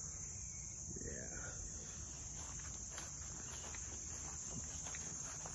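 Steady high-pitched insect chorus in summer greenery, with faint scattered steps as the person filming walks along the house.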